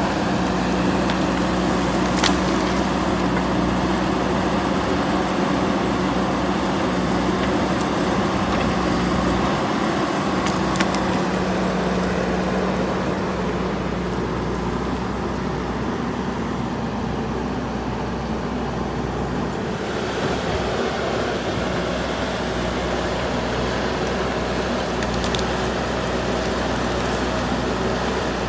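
JCB 3DX Super backhoe loader's diesel engine running steadily under load while the machine works soil with its front bucket. The engine note eases about halfway through, and a few sharp metal clanks come through.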